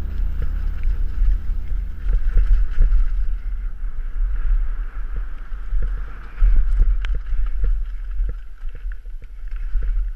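Wind buffeting a GoPro's microphone in a steady low rumble on a fast downhill mountain-bike descent over a dirt trail, with short knocks and rattles from the bike over the rough ground.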